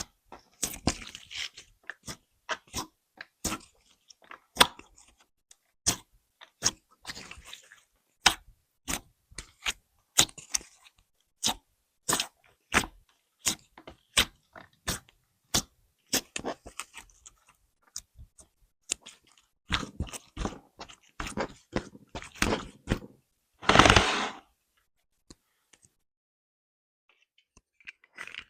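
A series of sharp, irregular clicks and taps, roughly one or two a second, with a louder half-second crunching rustle about 24 seconds in, then a short lull.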